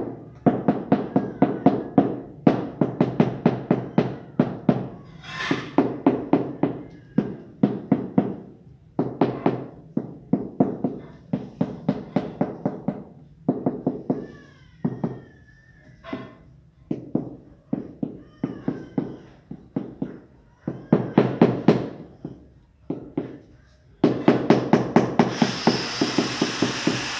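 Rubber mallet tapping a large ceramic floor tile down into its mortar bed to seat and level it: quick runs of knocks, several a second, with short pauses between runs. Near the end a steady hiss joins the knocks.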